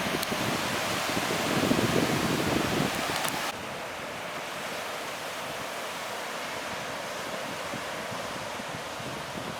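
Sea surf washing onto a beach, with wind on the microphone; a wave swells and breaks in the first few seconds, loudest about two seconds in, then the sound drops suddenly to a steadier hiss of surf.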